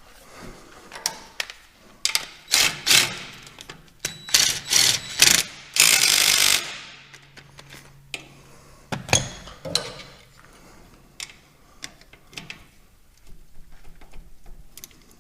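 Hand tools and metal parts being handled: scattered clicks and clanks with a few louder rustling, scraping bursts, the loudest about six seconds in.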